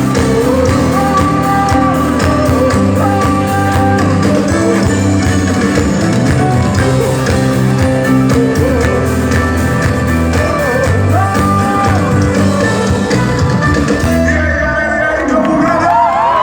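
Loud rock music with singing over guitar, bass and drums.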